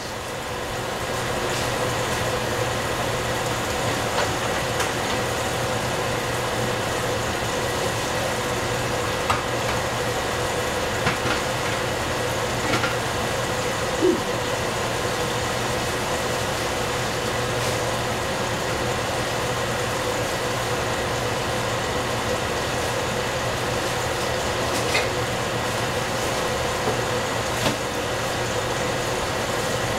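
Steady hum and hiss of vegetables cooking in a covered stainless steel pot on a gas stove burner, with a few faint ticks scattered through.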